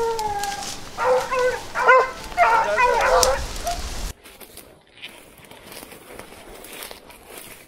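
Hog dogs barking and baying at a wild hog in several short bouts, cutting off suddenly about four seconds in; after that only faint noise remains.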